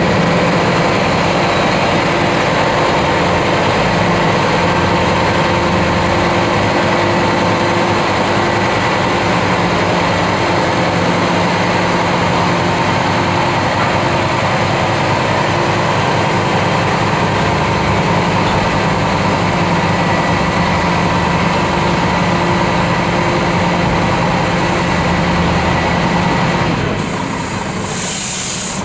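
Scania truck's diesel engine running steadily under way, with road noise. Near the end the engine note drops and a short hiss of air sounds.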